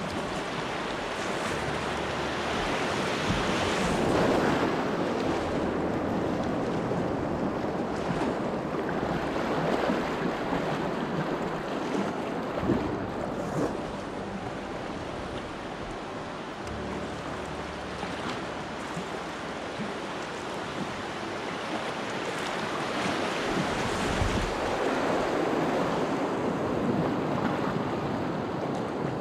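Whitewater rushing around a kayak running Class II rapids, swelling louder twice, with a few sharp hits near the middle.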